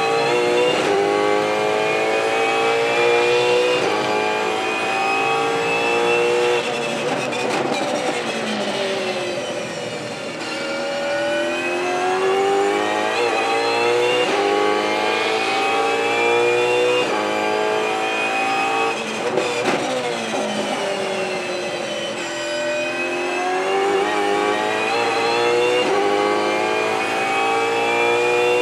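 V8 engine of a Ford Mustang Supercar at race pace, heard onboard. It climbs through the gears in quick upshifts, then drops in pitch twice as the car brakes and changes down, and pulls hard up through the gears again after each.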